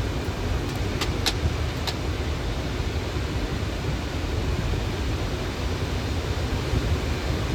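Steady flight-deck noise of a Boeing 737 on approach: a continuous rumble of airflow and engines, with three or four short, light clicks about a second in.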